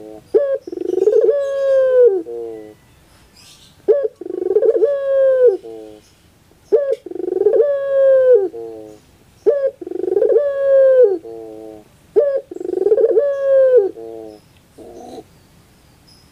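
Puter pelung, a Barbary dove variety, cooing five times at intervals of about two and a half to three seconds. Each call is a short opening note, a long held coo that drops at the end, and a quick stuttering run of short notes.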